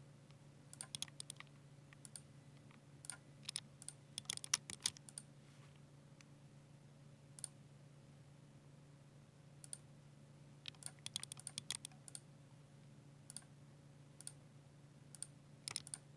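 Ducky 60% mechanical keyboard with silver switches being typed on: short bursts of key presses and a few single keystrokes, separated by pauses of a second or two. A steady low hum sits underneath.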